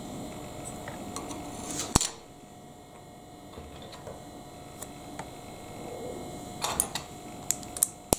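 Plastic LEGO bricks and plates clicking as they are handled and pressed together, with one sharp loud click about two seconds in and a quick run of smaller clicks near the end.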